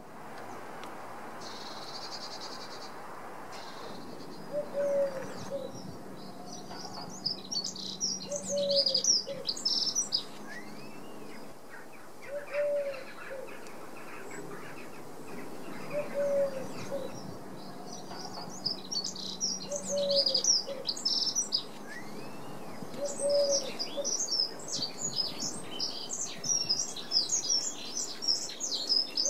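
Songbirds chirping and singing in bursts of quick high notes, with a short lower call repeating about every four seconds.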